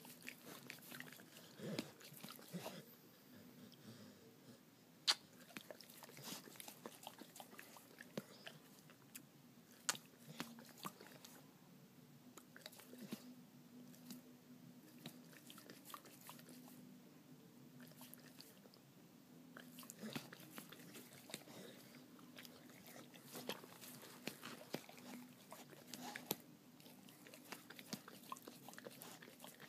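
A dog licking a person's face close to the microphone: soft, wet mouth clicks and smacks come irregularly throughout, with one sharper click about five seconds in.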